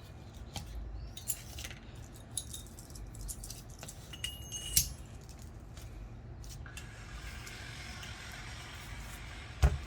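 Metal tools and small parts clinking as they are handled and set down, with one ringing metal clink about four and a half seconds in and a heavy thump near the end.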